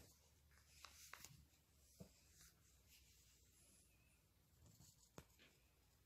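Faint pencil strokes scratching on sketchbook paper, with a few light ticks about one, two and five seconds in.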